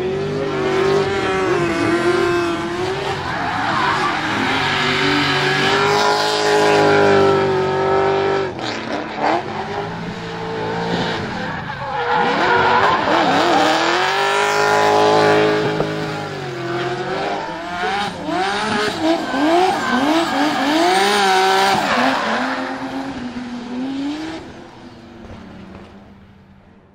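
Drift car's engine revving hard, its pitch climbing and dropping again and again as the car slides sideways, with screeching rear tyres spinning in smoke. The sound fades out near the end.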